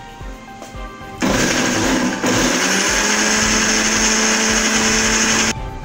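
Electric blender with a small grinder jar running, grinding fried onions, garlic and ginger into a masala paste. It starts about a second in, stutters briefly, winds up to a steady whirring hum, and cuts off just before the end.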